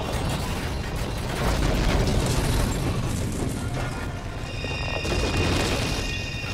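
Film crash sound of a tanker truck and a car tumbling down a rocky slope: a continuous heavy rumble of grinding, scraping metal and repeated impacts, loudest about two seconds in and again near five seconds.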